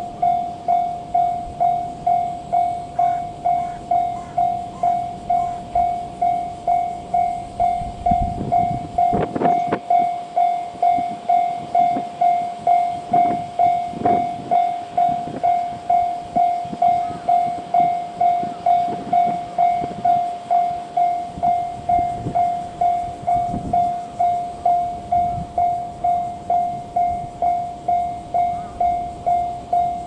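Japanese railway level crossing's electronic warning bell ringing steadily, a single-pitched ding about one and a half times a second, as a train approaches. A faint low rumble from the approaching train comes and goes under it from about eight seconds in.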